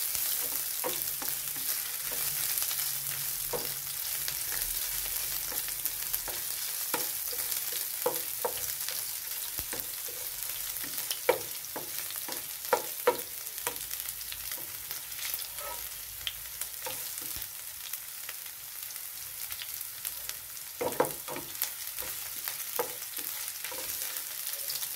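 Chopped ginger sizzling in hot oil in a nonstick wok, a steady hiss, with occasional taps and scrapes of the spatula against the pan as it is stirred.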